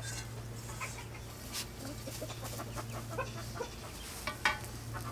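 Chickens clucking softly here and there, over a steady low electrical hum.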